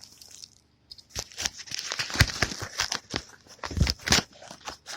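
Packaging being torn open and crinkled by hand: quiet at first, then a dense run of crackling and rustling from about a second in.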